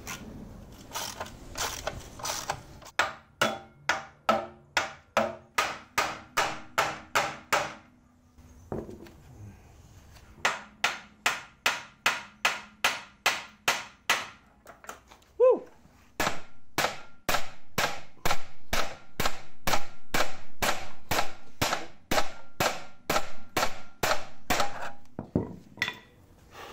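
Steady hammer blows on the rusty steel steering arm of an Opel Kadett C front suspension, each blow ringing metallically, in three runs of about two to three strikes a second with short pauses between. The blows knock the rusted tie rod end loose from the steering arm.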